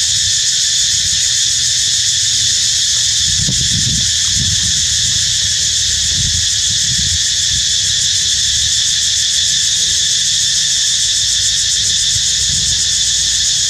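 Loud, steady chorus of insects: an unbroken high-pitched drone, with an uneven low rumble underneath.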